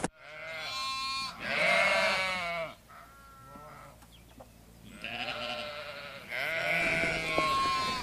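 Sheep bleating, about five wavering calls in a row. The loudest come around two seconds in and again near the end.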